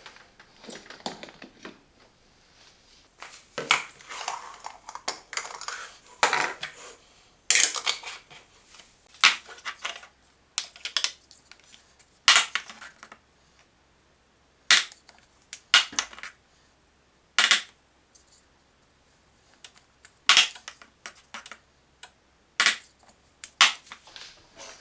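Irregular metal clicks, clanks and knocks of espresso-machine parts being handled: the portafilter and its filter sieve being taken apart, swapped and fitted for a double shot. Some knocks come singly, others in quick clusters.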